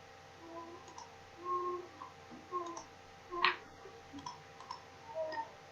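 Computer mouse clicking as edges are selected on screen: a few light clicks and one sharper click about three and a half seconds in, with faint short tones in the background.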